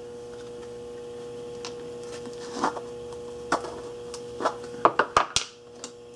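Small scattered clicks and taps from handling soldering tools and flux at a workbench, a quick cluster of sharper clicks near the end, over a steady faint hum.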